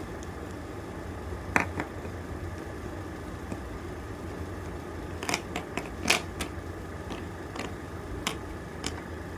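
Chalk crunching and snapping in a string of sharp, crisp cracks, a few scattered and a quick cluster in the middle, over a steady low hum.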